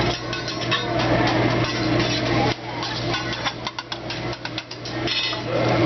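Metal spatula clacking and scraping on a steel teppanyaki griddle as a hibachi chef chops up an egg, with a quick run of taps in the middle. A steady low hum runs beneath.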